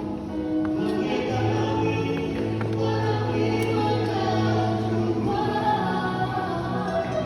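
Choir singing slow, held chords in several vocal parts, with a low bass line coming in about a second in and holding long notes.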